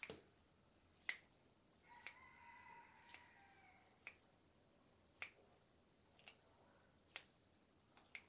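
Sharp clicks about once a second: finger joints popping as a masseuse pulls and cracks the client's fingers during a hand massage.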